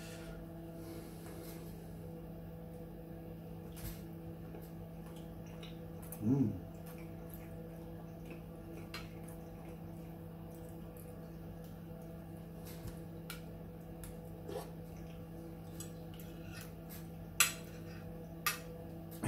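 Scattered light clinks of a metal fork against a ceramic plate while eating, the two loudest near the end, over a steady low hum. A brief low vocal murmur about six seconds in.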